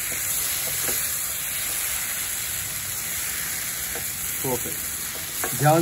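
Paneer, onion and capsicum frying in hot oil in a pan, a steady sizzle while a wooden spatula stirs and tosses them.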